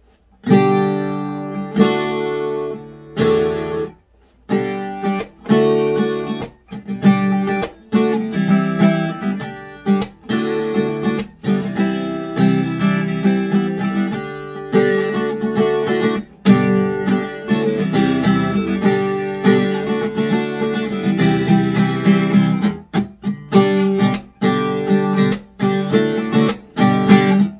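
Taylor GS Mini-e Rosewood acoustic guitar, freshly tuned, being strummed in chords, with a brief pause about four seconds in.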